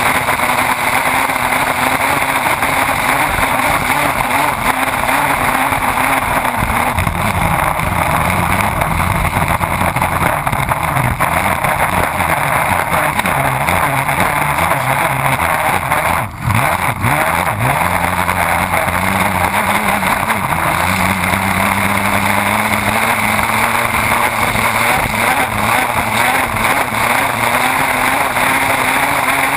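Race boat engine running flat out at racing speed, mixed with the rush of spray and wind at the stern. About halfway through the sound dips briefly and the engine note wavers before it steadies again.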